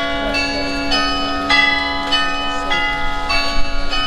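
Carillon bells playing a melody, a new bell struck about twice a second, each note ringing on over the others, above a low bass bell that sounds at the start and rings through.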